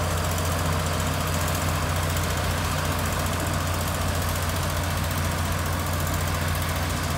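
Motor grader's diesel engine running steadily at low speed, a deep even hum with no changes in pitch.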